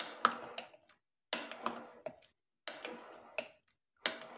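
A spoon scraping and clicking against a glass mixing bowl in four even strokes, about one every second and a half, as fruit is folded into a thick cream dressing.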